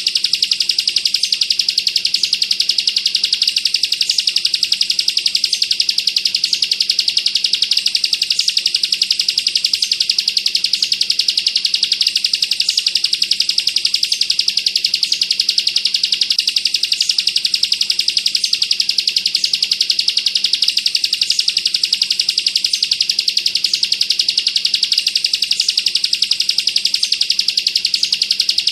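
Bar-winged prinia (ciblek) singing a continuous, very rapid rattling trill, the machine-gun-like 'bren' song. It is an unbroken run of high notes at an even loudness, with a slightly higher accent recurring about once a second.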